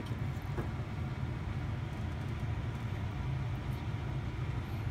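Steady low machine hum, with a faint click about half a second in.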